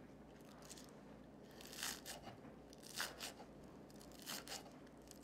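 Chef's knife slicing through scallions on a wooden cutting board: a few faint, crisp crunching cuts, starting about two seconds in.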